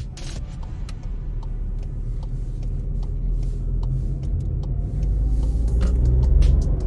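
2022 VW Polo Life TSI's 1.0-litre turbocharged three-cylinder engine and road noise while driving, a steady low rumble that grows louder about five seconds in as the car picks up speed.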